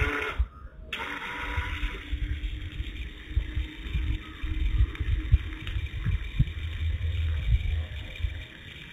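Small DC motor of a homemade water pump starting with a brief burst, then running with a steady hum as it drives a jet of water out of its pipe. An uneven low rumble with scattered thumps runs underneath.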